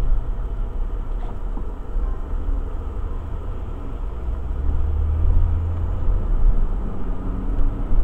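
Car engine and tyre rumble heard from inside the cabin during slow driving. The engine's low hum grows louder about halfway through as the car speeds up again.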